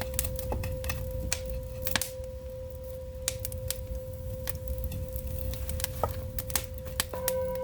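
Firewood burning in an agungi firebox: irregular sharp crackles and pops over a low rumble from the fire. A steady humming drone tone runs underneath and grows fuller near the end.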